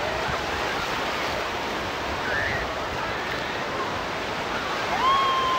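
Ocean surf washing onto a beach, a steady rushing wash of waves, with faint distant voices and one drawn-out call near the end.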